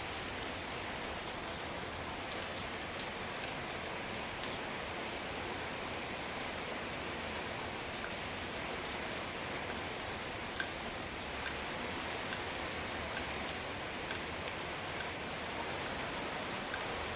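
Steady rain falling, an even hiss with a few scattered sharper drop ticks.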